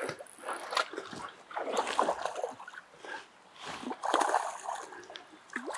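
Hooked Atlantic salmon splashing at the surface in irregular bursts as it is played in to the landing net, the fish nearly played out.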